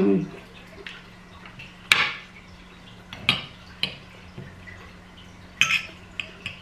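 Metal fork and knife clinking and scraping against a plate while cutting meat: a handful of short sharp clinks, the loudest about two seconds in.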